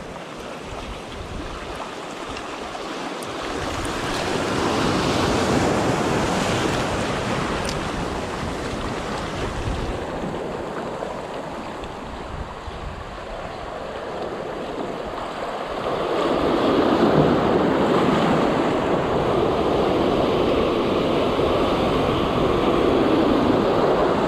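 Sea waves breaking and washing over shoreline rocks, the surf swelling louder twice, about five seconds in and again for the last third.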